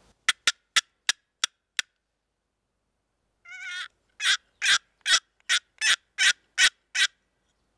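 Turkey yelps: a series of six quick, sharp, raspy yelps, then a short warbling note and a second series of eight louder yelps.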